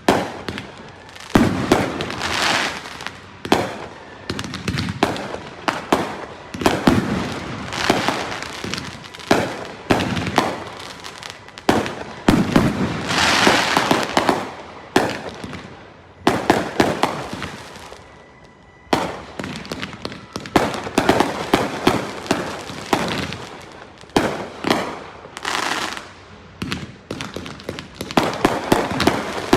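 Fireworks finale barrage from Great Grizzly fireworks: shells bursting with sharp bangs in quick succession, each followed by crackling. A short lull comes about two-thirds of the way through before the volleys resume.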